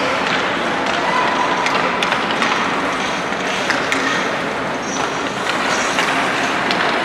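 Ice rink ambience during a youth hockey game: a steady rush of noise, with scattered sharp clacks of hockey sticks, puck and skates on the ice.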